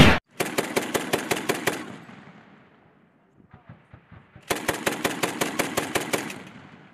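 Machine-gun firing sound from a toy gun: a sharp bang, then two rapid bursts of about nine shots a second, each lasting about a second and a half and trailing off in a fading echo, with a short pause between them.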